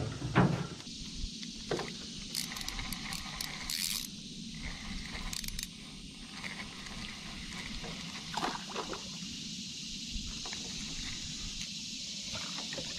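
Knocks and scrapes from handling fishing tackle in a small boat, with a few clicks, over a steady high-pitched hiss.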